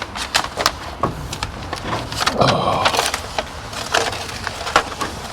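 Plastic window tint film being handled and unrolled, with irregular crackles and clicks and a short crinkling rustle about halfway through.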